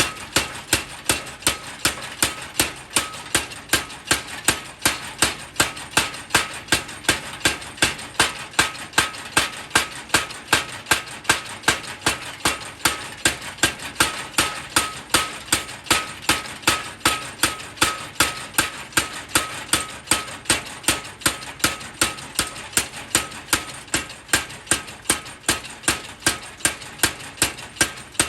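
Power hammer forging a steel knife blade: an even, unbroken run of heavy blows, about three a second, each with a short metallic ring.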